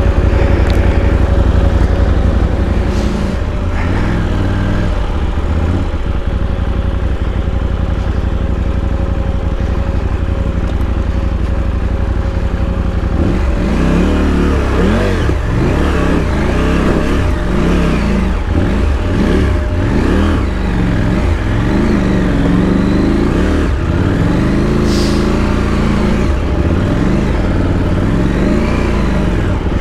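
KTM adventure motorcycle engine running steadily at first, then from about halfway revving up and down again and again as the throttle is opened and closed.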